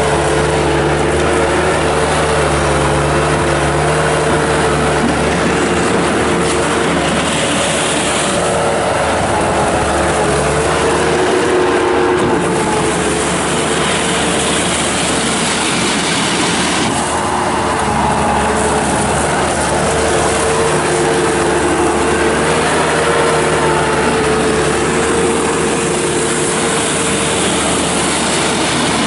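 1999 Bobcat 863 skid steer loader's 73 hp turbo diesel engine running loudly and steadily, with a whining tone that wavers slightly in pitch. A hiss rises over it twice, about eight and seventeen seconds in.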